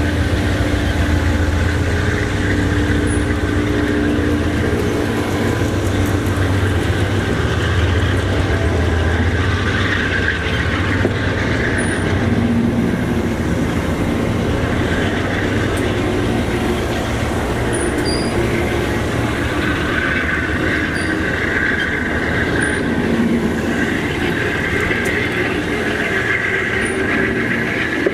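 Amtrak single-level stainless-steel passenger cars rolling past close by: the steady, loud rumble and clatter of steel wheels on the rails.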